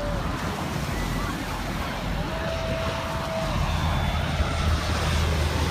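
Low rumble of distant aircraft over a beach, growing louder a little past the middle, with wind and surf noise and a few brief far-off voices.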